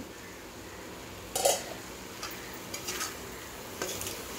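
Cauliflower masala sizzling in a steel kadai as a metal spatula stirs it, with several sharp scrapes and clinks of the spatula against the pan; the loudest comes about a second and a half in. The water has cooked off and the masala is frying dry.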